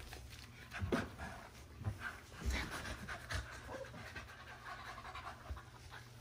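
Chimpanzee panting in short, irregular breaths, fairly quiet.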